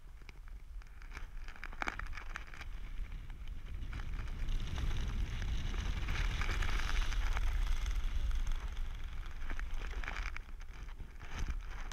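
Wind rushing over the microphone of a camera on a skydiver's helmet under an open parachute canopy, with crackling flutter of fabric. The rush grows louder about four seconds in as the canopy is swung into a steep turn, and eases off near the end.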